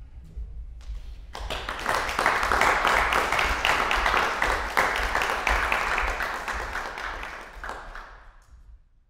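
Audience applauding. The clapping starts about a second in, swells, then dies away near the end, over a low steady hum.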